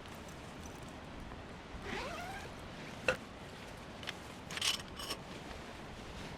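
Steady patter of rain, with a short rising animal call about two seconds in, a single sharp click about a second later, and a brief rustle near the five-second mark.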